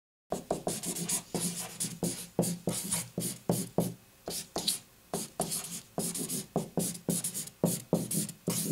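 Marker pen writing on paper against a wall: a rapid run of short scratchy strokes, one letter after another, starting abruptly just after the beginning.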